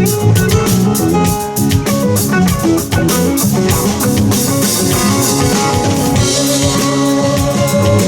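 A live rock band playing an instrumental passage: guitar, bass, keyboards and drum kit with a steady beat, with no singing.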